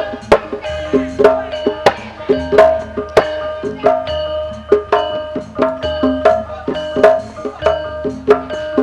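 A Javanese gamelan ensemble plays an instrumental piece for tayub dancing. Sharp hand-drum strokes cut across ringing struck metal tones in a steady rhythm, with a deep low tone sounding now and again.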